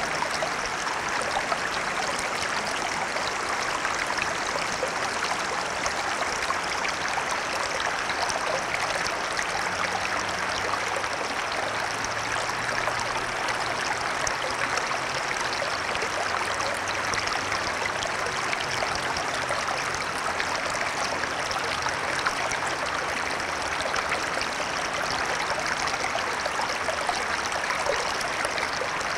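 Shallow stretch of a small stream flowing, a steady, even rush of running water with fine flickering splashes.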